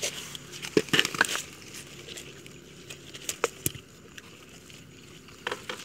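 Scattered clicks and crackles of a hand scoop net being worked through floating water plants, a cluster in the first second and a half and a few more later.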